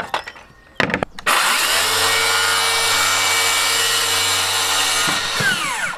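Battery-powered circular saw on a track-saw rail starting up, ripping along a wooden board at a steady pitch, then winding down near the end after a few clicks at the start. The cut goes through without the motor bogging down.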